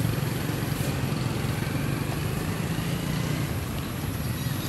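A motor engine running steadily nearby, a low drone with an even hiss over it.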